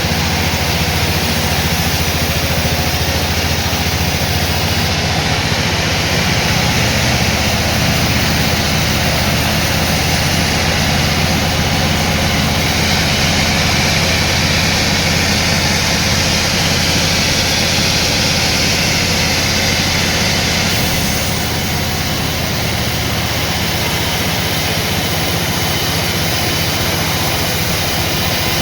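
Sawmill machinery running steadily with a deep engine hum. The sound brightens with added hiss from about twelve to twenty-one seconds in, then eases slightly.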